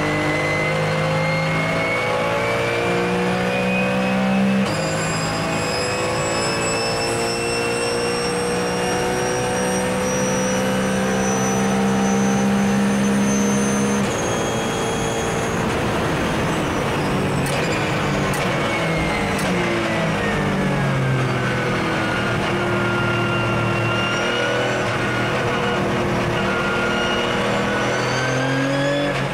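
Porsche 997 GT3 Cup's flat-six race engine heard from inside the cabin, pulling hard with its note climbing in long stretches and changing abruptly twice in the first half. Over the second half the note falls away as the car slows, then climbs again near the end.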